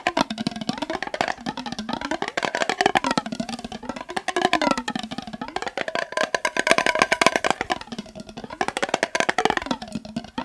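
Rapid fast tapping on a glass mason jar partly filled with water. The jar's ringing pitch slides down and back up every second or two as the water moves inside.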